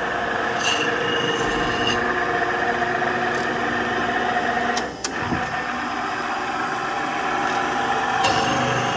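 VZ-173 knife-grinding machine running with a steady mechanical hum, its level dipping briefly about halfway through.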